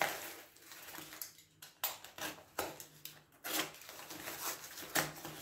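Box cutter slicing and scraping along packing tape on a cardboard shipping box, with irregular short scratchy strokes and the rustle of the box being handled.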